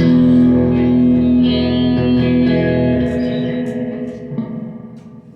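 Electric guitar through effects: one chord struck at the start and left to ring, fading slowly over about five seconds.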